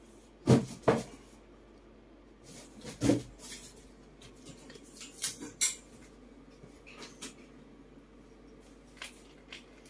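A few sharp knocks and clatters from pet monkeys moving about and handling things: two loud knocks close together about half a second in, another about three seconds in, then softer clicks and rustles.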